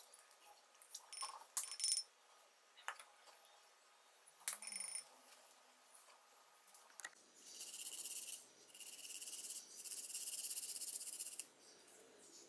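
A few light clinks of a measuring spoon against a ceramic bowl, then three long rasping strokes of garlic being grated on a metal grater.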